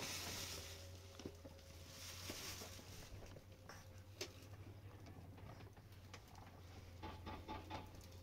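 Quiet handling of plastic bags and containers: two short rustles in the first few seconds, then light clicks and knocks, with a small cluster near the end, over a steady low hum.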